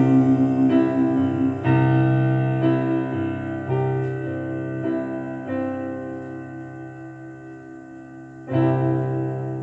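Instrumental outro of a ballad on piano: chords struck about once a second, then left to ring and fade, with one last louder chord near the end.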